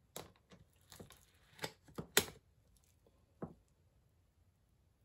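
Metal springform cake tin being handled on a wooden board: a run of light knocks and clicks over the first two seconds, the sharpest just after two seconds in, then one more knock about three and a half seconds in.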